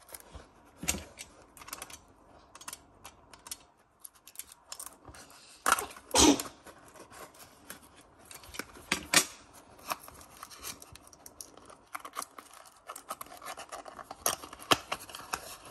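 Small cardboard toy box being handled and its tape seal slit with a craft knife: scattered taps, scrapes and short cutting and rustling sounds, the loudest around six and nine seconds in.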